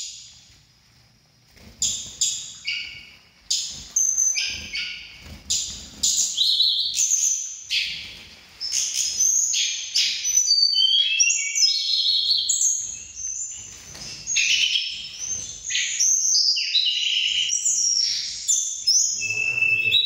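Several caged tledekan gunung (Sunda robins) singing against each other in a song duel, fired up. Their quick whistled phrases overlap, start about a second and a half in, and grow denser and more continuous about halfway through.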